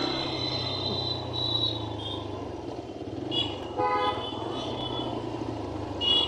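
Busy street traffic: a steady engine hum with short high horn toots here and there and one lower, longer horn honk about four seconds in.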